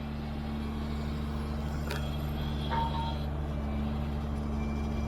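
Heavy diesel engine idling steadily, with a single sharp metallic click about two seconds in.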